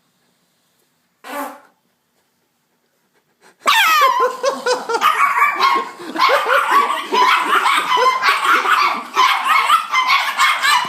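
A brief low sound about a second in, then from about three and a half seconds a Chihuahua barking and yapping frantically without letup.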